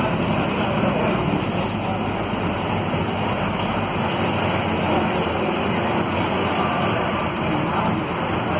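Cabin noise inside a Volvo B9SALF low-floor city bus under way: its Volvo D9A diesel engine running, mixed with steady road noise.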